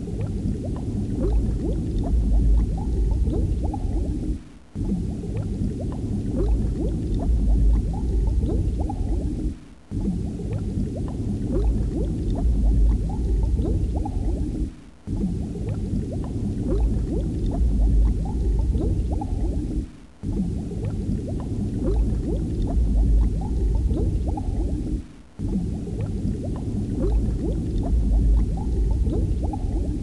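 Bubbling, gurgling water with a heavy low rumble. It is a short loop that repeats about every five seconds, each repeat marked by a brief drop in level.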